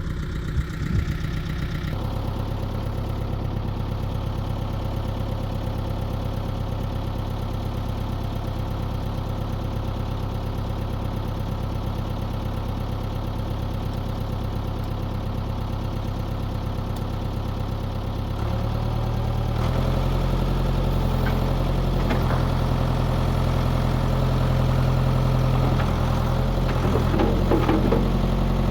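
Backhoe's diesel engine running steadily, then picking up revs in two steps about two-thirds of the way through, with a few knocks near the end.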